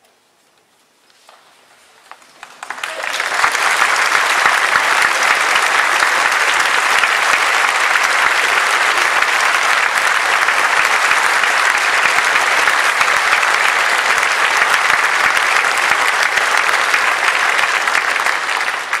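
Concert hall audience applauding: a few scattered claps, then full applause breaking out about three seconds in and holding steady, starting to die down right at the end.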